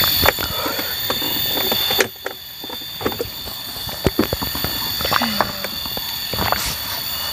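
A steady high-pitched whine of several tones, loudest in the first two seconds, with scattered clicks and knocks.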